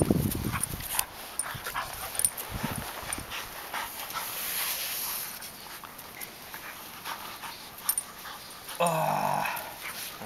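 A Boxer puppy and a Belgian Tervuren play-fighting: scuffling, breathing and small dog vocal sounds. There is a short louder sound with a clear pitch about nine seconds in.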